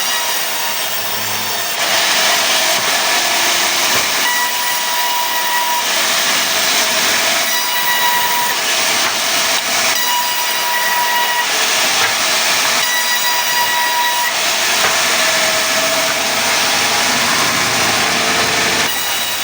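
Sawmill saw running through a pine log, a loud continuous hissing cut with a whine that comes and goes every few seconds.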